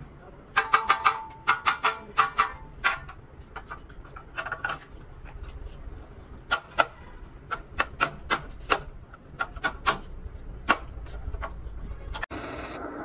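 Small hammer striking a truck radiator's metal top tank, each blow with a short metallic ring: a quick run of blows, then single taps spaced out. Near the end it cuts to a steady hiss.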